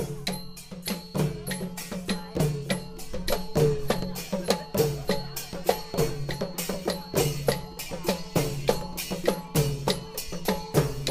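Thai folk percussion band playing a fast, steady processional beat on drums, with ringing metal percussion sounding over the strikes.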